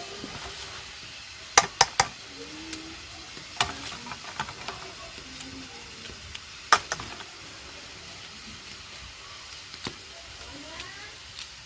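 Potato pieces frying in oil in a kadai, a steady sizzle, with a few sharp knocks: three in quick succession about one and a half seconds in, then single ones near four and seven seconds.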